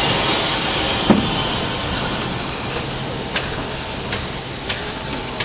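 Steady hiss of escaping steam from ÖBB steam locomotive 638.1301, close by. There is a single knock about a second in and a few light metallic clicks later on.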